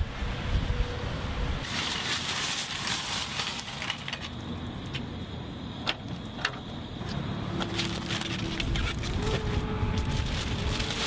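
Outdoor traffic noise with a car running, and a few sharp clicks and knocks over it.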